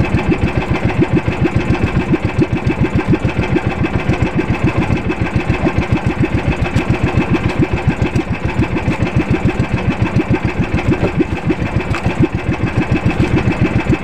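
Fishing boat's engine running steadily with a rapid, even chugging beat.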